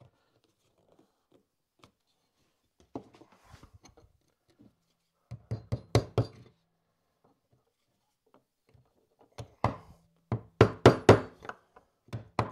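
A wood chisel being struck to chop into a chipboard saw-table top: a run of about six sharp knocks about five seconds in, then a faster run of about eight knocks near the end.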